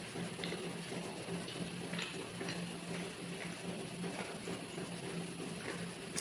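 Eating sounds: soft, wet chewing and mouth clicks, a few at a time, over a steady low hum and hiss.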